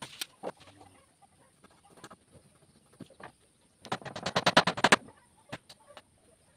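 Hammer blows on a wooden chair frame: a few single knocks, then about four seconds in a quick run of about a dozen rapid taps lasting about a second.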